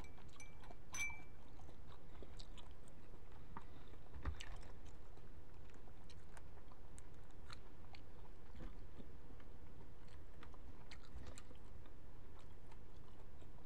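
Soft eating and handling noises: scattered small clicks from chewing shrimp and from a paper packet being handled, over a steady low hum, with one slightly stronger click about four seconds in.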